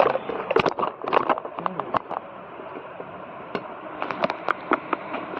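Sharp clicks and light metallic knocks from a wall fan's motor parts and tools being handled during disassembly, in a cluster over the first second or so and again near the end.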